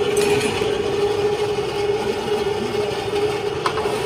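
A forge's air blower running with a steady hum as it drives air into the coal fire. A single sharp click comes about three and a half seconds in.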